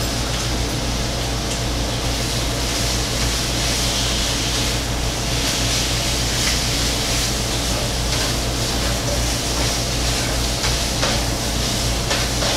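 Thin-sliced beef brisket (chadol-baegi) sizzling in a frying pan over high heat, a steady hiss with a few faint ticks. A steady low hum runs underneath.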